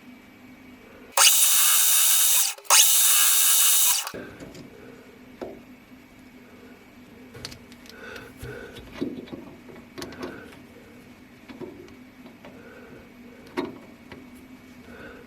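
Two loud hissing blasts, each about a second and a half, about a second in. After them a metal lathe runs quietly with scattered light clicks.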